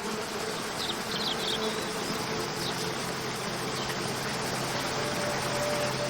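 Steady rush of a waterfall, with a few short bird chirps about a second in and again midway, over a faint steady low hum.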